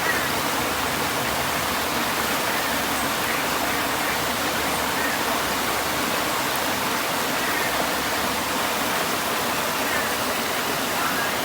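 River water flowing, a steady even rushing noise.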